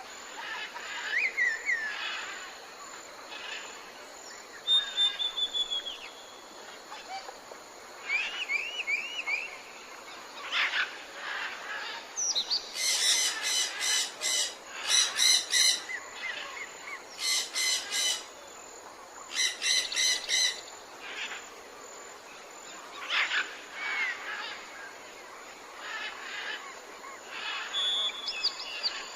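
Tropical forest birdsong: several birds calling with whistles, short gliding notes and quick trills over a steady background hiss. About midway come four loud bursts of rapid repeated notes, each lasting one to two seconds.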